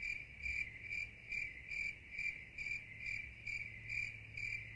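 Crickets chirping in an even, steady rhythm of about two chirps a second: the stock "crickets" sound effect used as a gag for an awkward silence after a joke.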